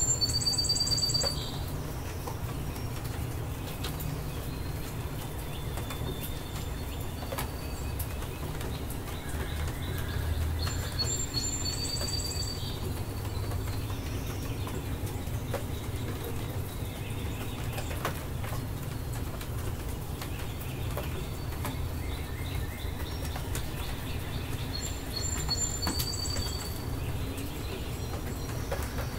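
A bird sings the same short phrase three times, roughly every 12 seconds: a few high notes ending in a quick trill. Under it runs a steady, low-pitched rumble of background noise.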